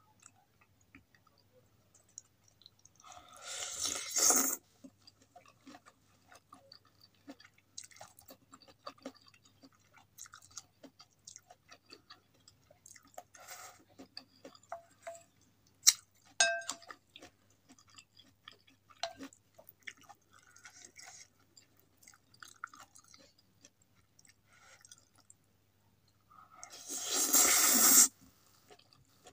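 Close-miked mukbang eating of soupy instant noodles with vegetables: soft wet chewing and small mouth clicks throughout, with two loud slurps of noodles, one about three seconds in and one near the end. A sharp clink of a utensil on the glass bowl comes around the middle.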